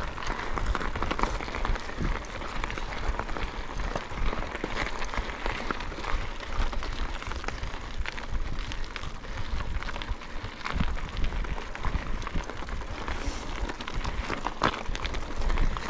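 Mountain bike ridden along a rough cross-country trail, heard from on board: a steady rush of tyre noise with many quick clicks and rattles from the bike over the bumps, and wind rumbling on the microphone.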